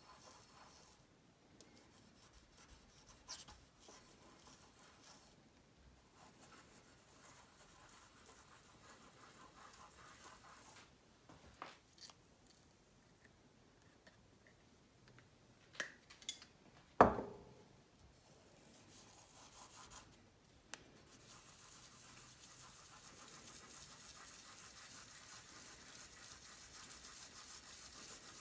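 Small hand tools scratching and rubbing on a watch's metal parts at a workbench, with scattered light ticks. There is one sharp metallic click with a brief ring about 17 seconds in, and a steadier rubbing from about 21 seconds on.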